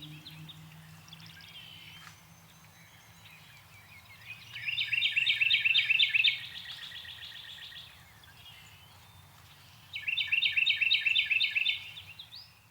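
Northern cardinal singing: two loud runs of rapidly repeated slurred whistles, one about five seconds in and another near the end, over a low steady rumble and faint calls of other birds.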